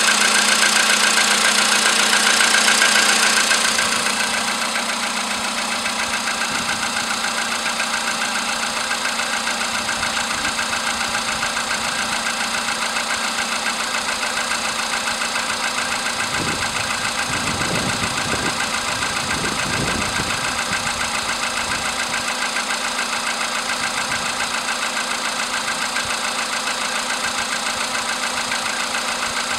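VW Polo Sedan's 1.6-litre CFNA four-cylinder petrol engine idling soon after a morning cold start, with a steady rapid knock running through it that the owner is showing as his engine's fault. It gets quieter about four seconds in.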